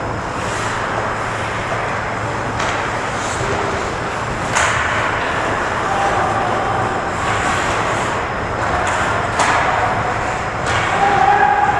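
Ice hockey play in an echoing indoor rink: skates scraping and carving on the ice, with a handful of sharp clacks of sticks and puck hitting.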